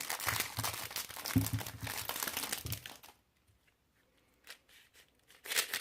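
Plastic packaging crinkling and tearing as a new puzzle cube's wrapping is worked open. The crackling runs for about three seconds, then stops for a quiet spell with a few faint clicks, and starts again near the end.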